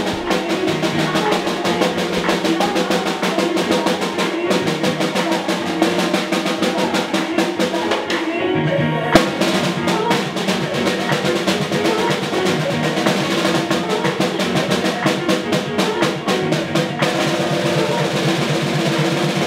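Music with fast snare-drum rolls and rapid stick strokes over sustained pitched instruments. The drumming thins out briefly about eight and a half seconds in, then comes back on a single sharp hit.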